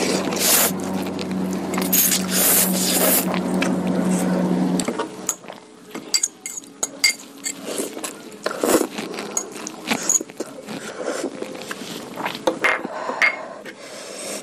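Close-up eating: a spoon or fork clinking and scraping against a bowl of curry noodles and meatballs, with chewing noises between the clinks. A loud steady hum with hiss runs under the first five seconds and stops abruptly.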